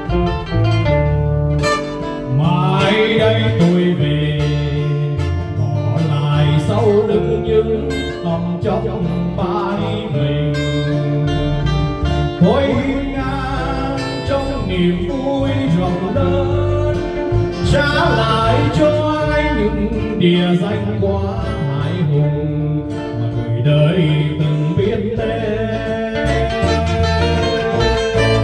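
Live amplified band playing a Vietnamese ballad: two acoustic guitars and an electric bass, with a man singing into a microphone. The guitars play alone at first, and the voice comes in about two seconds in.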